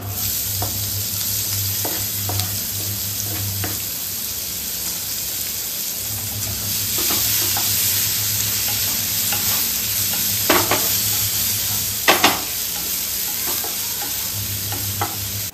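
Chopped onions sizzling in hot oil and butter in a nonstick frying pan as they go in and are stirred with a wooden spatula. A few light knocks of the spatula on the pan, the clearest two about two-thirds of the way through.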